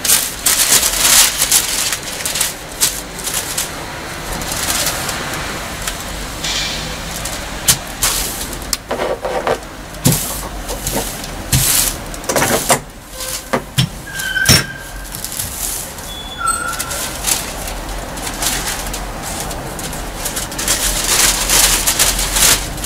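Large sheets of paper sewing pattern rustling and crinkling as they are handled and smoothed flat over fabric, with a few sharp knocks as heavy pattern weights are set down on them.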